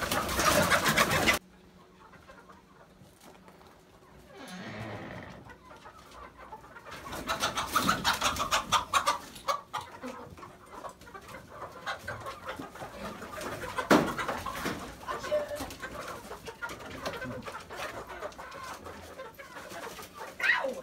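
A flock of chickens clucking, with a flurry of wing flapping as they are chased with a fishing net. The loud flurry cuts off abruptly about a second and a half in, the clucking and scuffling builds again later, and there is a single sharp knock about 14 seconds in.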